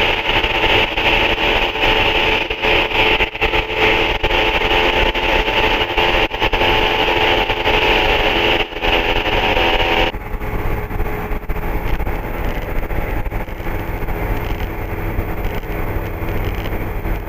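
MD3 Rider ultralight's engine and propeller droning steadily in the cockpit, with airflow hiss, at almost 250 km/h. About ten seconds in, the higher hiss and whine drop away suddenly, leaving a lower drone.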